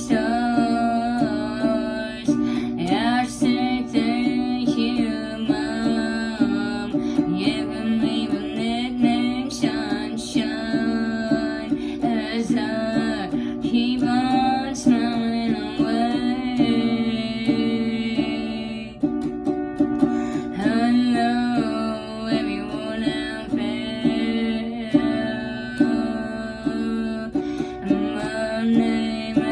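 Music: guitar playing along with a singing voice.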